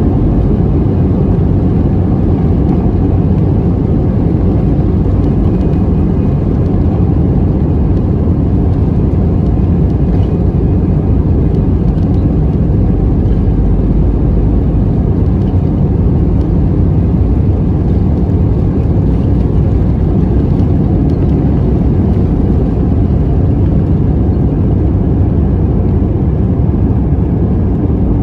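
Jet airliner's engines at take-off power, heard from inside the cabin over the wing: a loud, steady rumble through the take-off roll and lift-off into the climb.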